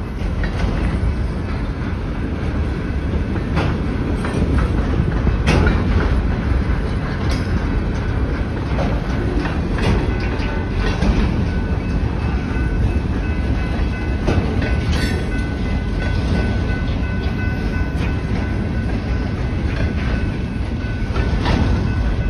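Freight cars loaded with waste containers rolling past. There is a steady heavy rumble, with sharp wheel clacks over the rail joints every second or two.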